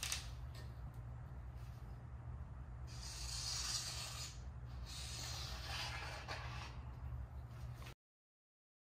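Marker tip scratching along rough OSB sheathing in two strokes of about a second each, with a fainter third near the end, over a low steady hum. The sound cuts off to dead silence about eight seconds in.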